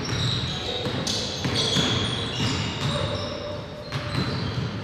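A basketball being dribbled during play, repeated bounces on the court, with several short high squeaks over them.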